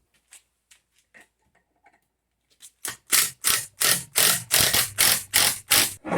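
Impact driver fitted with a right-angle attachment driving a screw in a rapid series of short bursts, about three a second, preceded by a few faint clicks.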